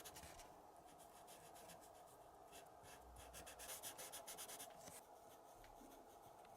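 Faint, rapid scratchy strokes of yellow paint being brushed onto a small paper sticker shape, in short runs with brief pauses, busiest in the middle.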